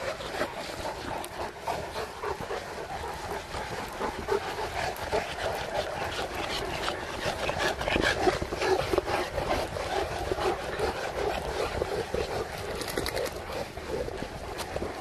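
A large pack of St. Bernard dogs heard together over a continuous busy background, loudest about halfway through.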